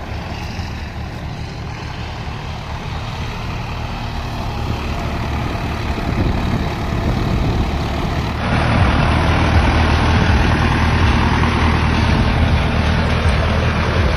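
Swaraj 963 FE tractor's three-cylinder diesel running steadily under load, pulling a super seeder in fourth low gear. About eight seconds in, a louder engine sound from a Solis tractor takes over.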